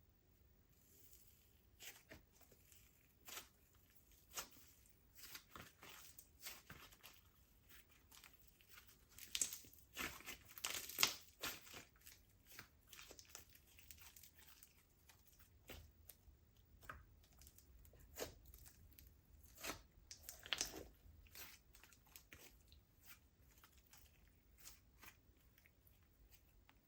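Slime being squished and stretched by hand, giving irregular sticky crackles and pops. They come thickest about ten seconds in and again around twenty seconds in.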